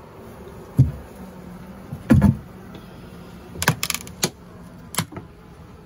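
Wooden frames of a horizontal long hive knocking and clicking against each other as they are handled: a handful of sharp knocks, the loudest about two seconds in and a quick cluster later on. A low, steady hum of honeybees runs underneath.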